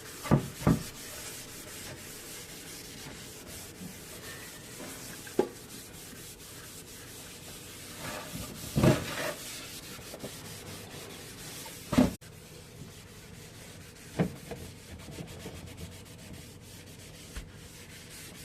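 Steady scrubbing and rubbing of a surface during cleaning, broken by a few sharp knocks from objects being handled and set down.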